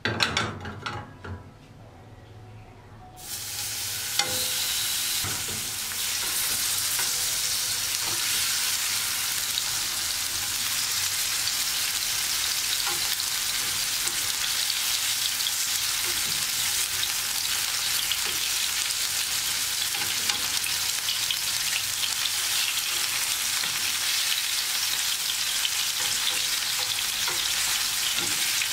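Chicken breasts frying in hot oil in a nonstick grill pan on a gas burner. A few knocks of the pan come near the start. About three seconds in, a loud sizzle starts suddenly as the meat goes in, then runs steadily with small pops of spattering oil.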